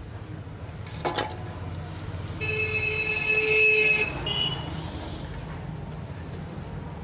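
A vehicle horn sounds for about a second and a half, starting about two and a half seconds in, over a steady low hum. A single sharp click comes about a second in.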